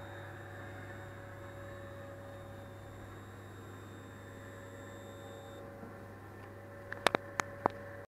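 Steady electrical hum of a CO2 laser engraver, with a faint high whine that stops a little past halfway. Near the end, four short, sharp clicks in quick succession.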